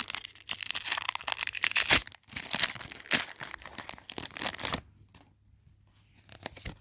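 Foil wrapper of a Pokémon booster pack being torn open and crinkled, a dense crackling rustle that stops about five seconds in.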